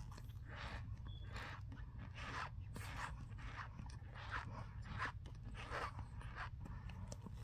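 Close-up chewing of a mouthful of powdery starch: a run of soft, faint crunches, about two or three a second.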